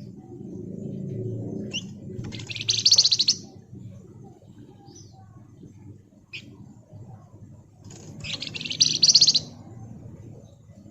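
Flamboyan (wergan Jawa) songbird giving two dense, rapid buzzing trills ('ngebren'), each about a second long, one about two seconds in and one near eight seconds, with a few short chips between them. A low background rumble runs underneath.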